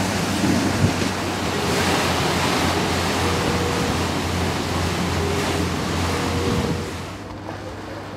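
Wind buffeting the microphone over the rush of churned wake water beside a moving lake steamer, with a steady low engine hum underneath. The wind and water noise drop noticeably about seven seconds in.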